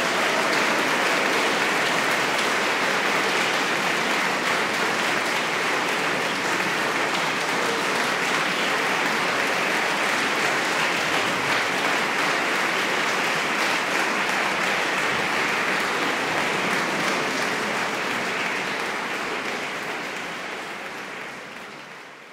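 Concert-hall audience applauding steadily, then fading out over the last few seconds.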